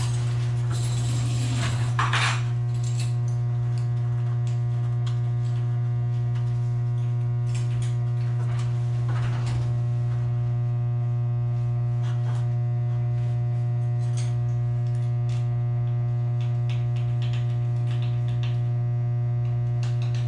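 Steady, loud mains hum from energized electrical gear, strongest at a low pitch with a ladder of higher overtones above it. Scattered light metallic clinks and rattles come through as small parts are handled, with a few near the 2-second mark and more around 8 to 14 seconds.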